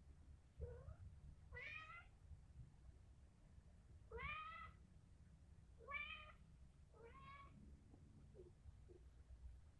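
Kitten mewing faintly: five short mews spaced a second or two apart, each rising in pitch, then two brief faint squeaks near the end.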